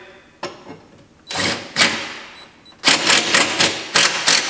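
Cordless impact driver sinking a self-tapping screw through an aluminium firewall guard into a UTV's steel frame. It starts with short spins, then from about three seconds in comes a rapid hammering rattle as the impact mechanism kicks in and the screw seats.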